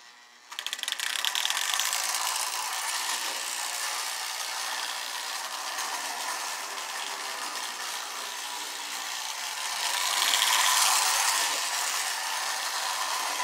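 Postwar Marx Canadian Pacific electric toy locomotive, freshly serviced and lubricated, pulling its tender around toy train track: a steady mechanical whir and clatter of the motor gearing and the wheels on the rails. It starts about half a second in and grows louder around ten seconds in, as the train comes near.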